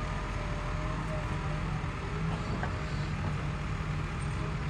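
A Cat hydraulic excavator's diesel engine runs steadily while its arm and grapple move against the wall.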